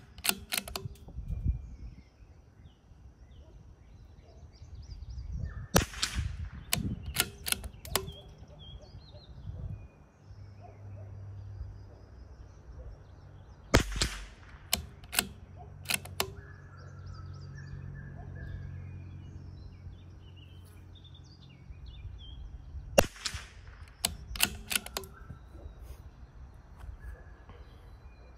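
Three .22 rimfire shots from a CZ 457 bolt-action rifle, spaced about eight to nine seconds apart, each followed by a few quick sharp clicks as the bolt is worked. Faint bird calls in between.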